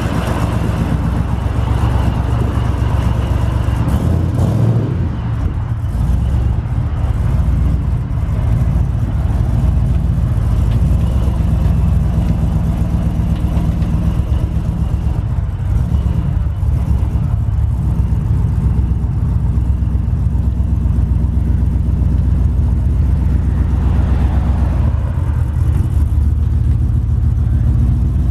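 Turbocharged pickup truck's engine idling as the truck creeps backward out of a trailer: a steady, low engine sound, with a brief dip and a falling pitch about four to five seconds in.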